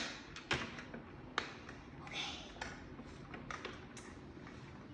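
Hard plastic toy playset pieces being handled: a few separate sharp clicks and taps spread out, with a brief scrape of plastic about two seconds in.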